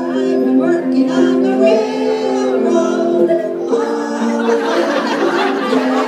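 Music playing in a hall, built on held keyboard or organ chords; voices rise over it in the last couple of seconds.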